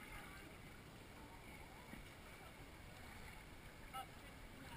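Faint water sloshing and flowing around an inflatable inner tube drifting down a water-park river channel, with faint distant voices.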